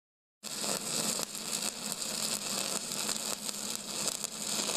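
Stick welding arc crackling and hissing steadily, starting abruptly about half a second in.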